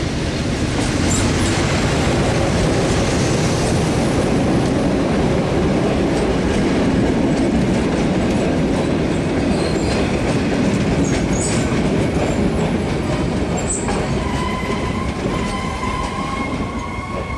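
Meter-gauge passenger train hauled by a YDM-4 diesel locomotive rolling in alongside the platform: the locomotive runs past, then the coaches roll by with their wheels clattering over the rail joints. From about fourteen seconds in a steady high-pitched squeal comes in as the train slows to a stop.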